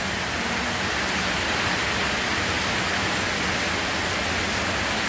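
Heavy rain falling hard, a steady hiss.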